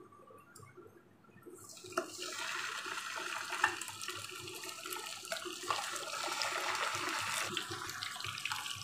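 Raw chicken legs going into hot oil in a kadai: near quiet for the first two seconds, then steady sizzling with small crackles as the pieces start to fry.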